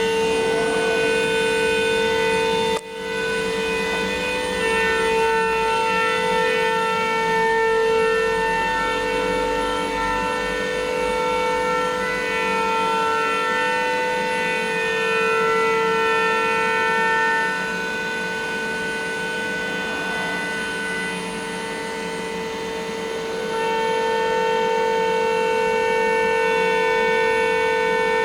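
A 4-axis CNC machining center's spindle running at high speed while engraving a metal tire mold, giving a steady, high whine of several held tones over faint cutting noise. The sound drops briefly about three seconds in, and its loudness shifts a little later on.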